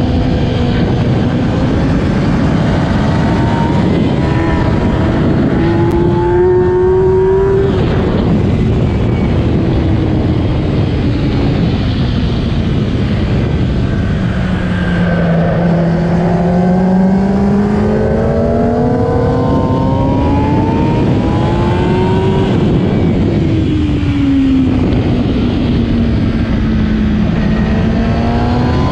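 2008 Kawasaki ZX-10R's inline-four engine at racing speed, with heavy wind rush. The revs climb, drop sharply about eight seconds in and sink slowly, then climb again over the middle before dropping once more and climbing near the end.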